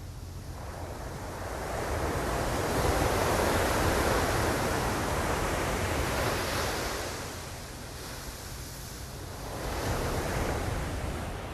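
Ocean surf: one wave washes in, building over a couple of seconds and dying back about eight seconds in, then a smaller second wave surges near the end.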